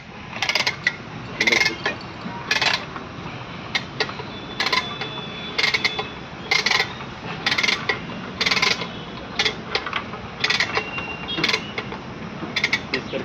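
Manual chain hoist lifting an engine: the hand chain rattles and the ratchet clicks in a short clattering burst about once a second, one for each pull.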